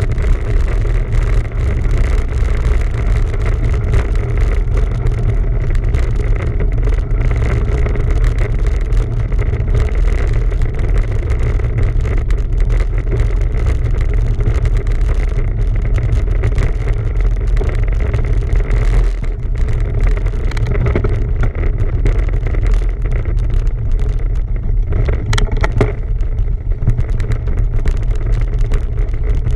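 Steady low rumble of wind buffeting the microphone, with tyre and trail noise from a bicycle being ridden.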